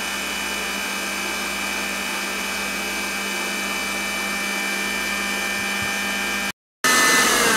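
Electric stand mixer running with its whisk attachment, whipping a hot honey and gelatin mixture into marshmallow, with a steady motor hum and whine. Near the end the sound cuts out for a moment and comes back louder, its whine starting to fall in pitch.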